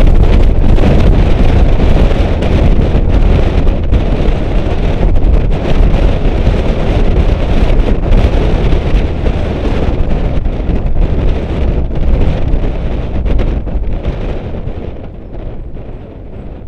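Heavy wind buffeting on the microphone of a camera mounted outside a car at track speed, rumbling and gusty over road noise. It eases off over the last few seconds as the car slows.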